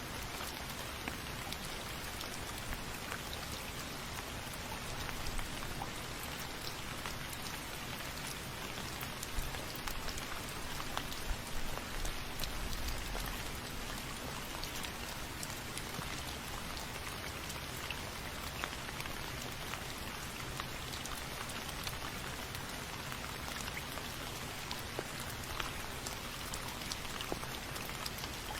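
Steady rain falling, with many small drops pattering on a surface. About twelve seconds in there is a brief low rumble.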